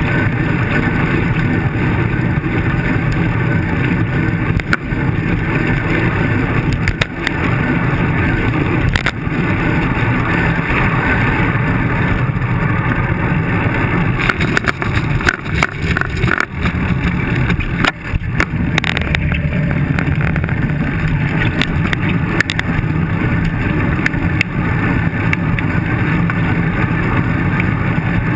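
Steady rumble of road noise and wind on a handlebar-mounted camera while cycling, with scattered knocks from bumps in the road, a cluster of them about halfway through.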